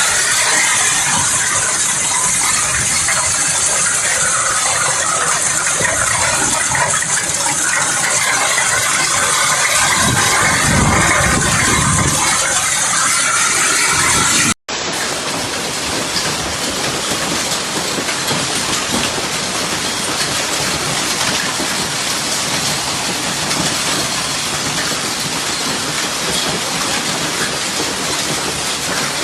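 Hail and heavy rain pelting down, a dense clattering hiss with low rumbles in the first half. After a sudden cut it becomes the steady hiss of a heavy downpour.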